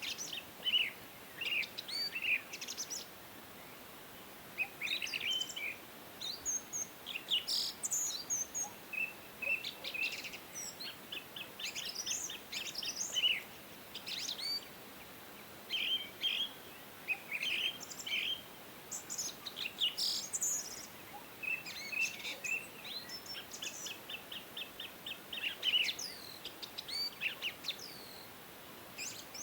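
Several small birds chirping and singing, short repeated notes and fast trills in quick bursts, over a faint steady background hiss.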